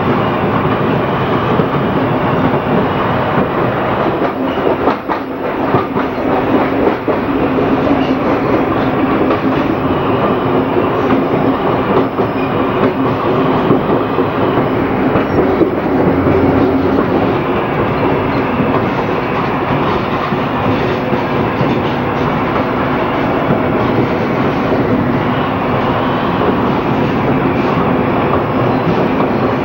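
MERVAL AES electric railcar running at speed, heard from the driver's cab: a steady hum under the rumble of the wheels on the track, with wheels clicking over the rail joints.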